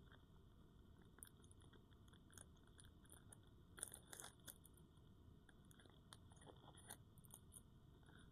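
Soap being opened and handled close to the microphone: faint, scattered crackles and small clicks, with a short cluster of crunchy crackles about four seconds in.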